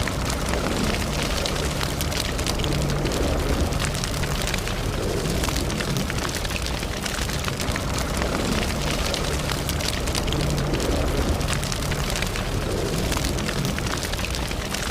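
A horror sound effect: a continuous dense rumbling noise thick with crackles, holding steady in level.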